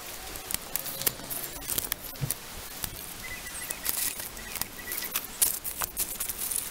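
Scissors snipping strawberry runners, with hands rustling the leaves and handling the plant pots: a scatter of short, irregular clicks and rustles.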